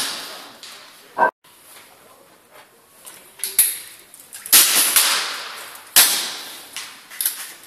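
Spring-piston air rifles firing on a shooting line: about five sharp reports a second or so apart in the second half, each with a short ringing tail.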